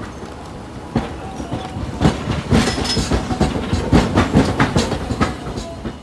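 A Hiroshima Electric Railway 800-series streetcar rolls through the station pointwork. Its wheels clack in quick, uneven knocks over the switches and crossings, starting about a second in, thickest in the middle and thinning out near the end.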